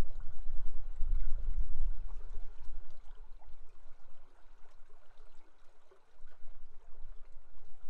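River water rushing steadily, with a low rumble that is strong at first, dies down about halfway through and builds again near the end.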